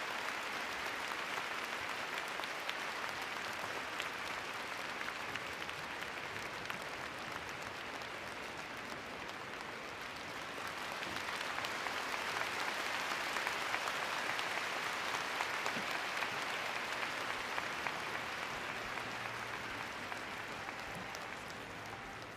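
Arena audience applauding steadily, swelling about halfway through and fading toward the end.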